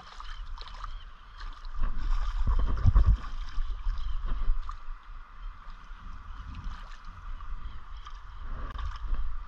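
River water flowing and sloshing around a wader, with irregular bumps and splashes of movement in the water, loudest about two to three seconds in.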